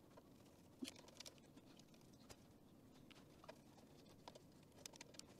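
Near silence with a few faint, scattered clicks and taps: a screwdriver and wire ends working at electrical terminal blocks.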